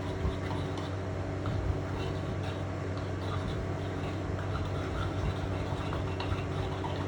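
Steady low machine hum, with faint scattered clicks and scrapes of hand work.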